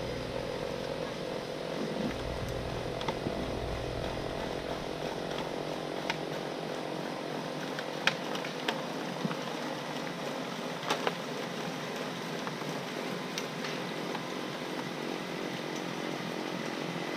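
Snowblower's small engine running steadily, with a few sharp ticks partway through.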